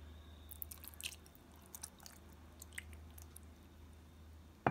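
Faint, scattered wet ticks and clicks as apple cider vinegar is poured over raw pork chops in a glass bowl, over a low steady hum, with a sharper click near the end.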